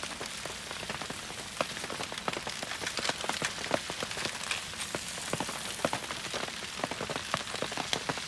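Steady rain pattering on a surface, with many small sharp drop ticks scattered through an even hiss.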